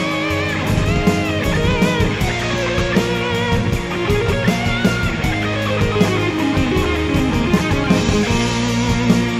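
Instrumental melodic rock/metal: a lead electric guitar plays a melody with bends and vibrato over drums, bass guitar and keyboards. A long descending run of notes comes about halfway through.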